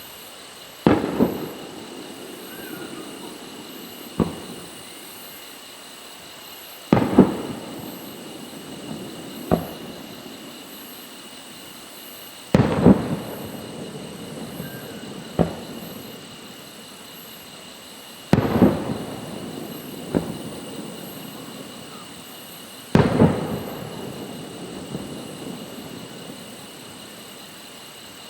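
Aerial fireworks shells going off: five loud booms about every five to six seconds, each trailing off in a long rolling echo, with a smaller sharp bang between each pair.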